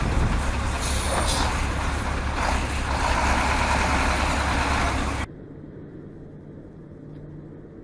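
Heavy diesel dump truck engines running loud, with a dense low rumble. About five seconds in, the sound cuts abruptly to a much quieter, steady hum of a car driving on a highway, heard from inside the cabin.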